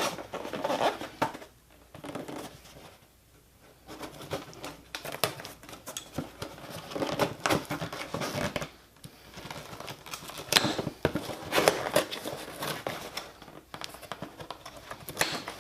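Car-part packaging being handled and torn open: irregular crinkling and tearing of wrapping and tape, with scattered sharp clicks and knocks. There is a quieter pause about two seconds in.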